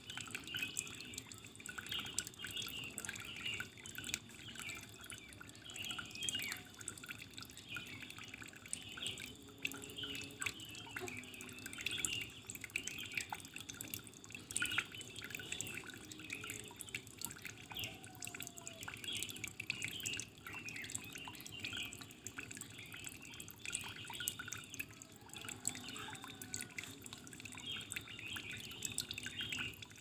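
Running water trickling and splashing, a dense, irregular patter of small drips and plinks.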